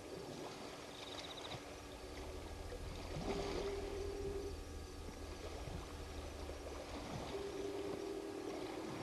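African elephant bull drinking: water splashing and pouring as it sucks it up and lifts its trunk to its mouth. A steady hum comes in twice, from the remotely controlled camera's pan motor.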